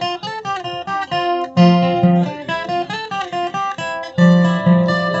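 Background song music: an instrumental break of plucked acoustic guitar with many quick picked notes, no singing.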